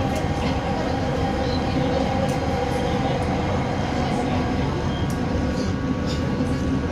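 Inside the carriage of a Bombardier Innovia Metro 300 light-rail train running at speed on elevated track: a steady rumble of wheels on rail with a few held humming tones and scattered faint clicks.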